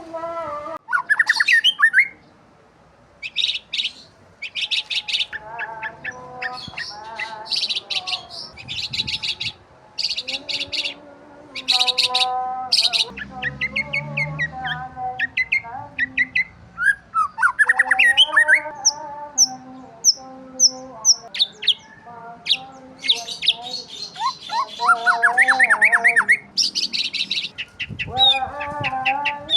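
Several birds chirping and twittering over one another in a continuous chorus of quick high notes, trills and repeated short calls.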